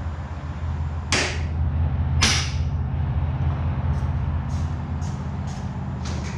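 Two sharp rasping swishes about a second apart, then a few lighter clicks, over a steady low hum: hands working the cowling of a Yamaha V6 outboard to take it off.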